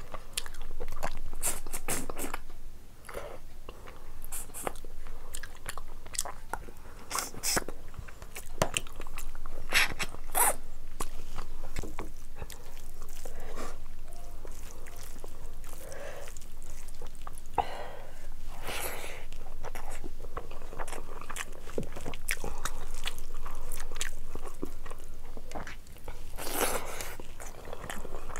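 A person chewing and biting mouthfuls of meat curry and rice eaten by hand, with many irregular sharp mouth clicks and short bursts of eating noise.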